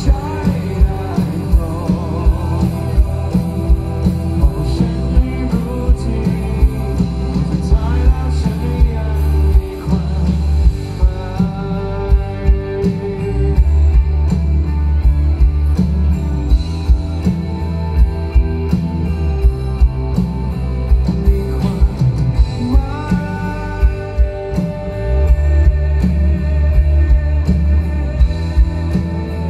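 Live rock band playing through a loud PA: electric guitar and drum kit keeping a steady beat, with a male singer's vocals.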